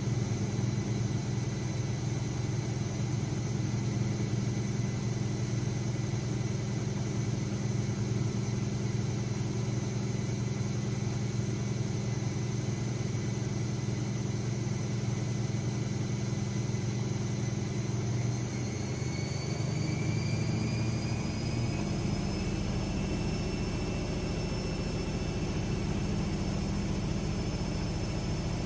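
AEG Lavamat 6610 washing machine running with a steady hum and motor whine. About two-thirds of the way through, the whine rises in pitch as the drum speeds up, then holds steady at the higher speed.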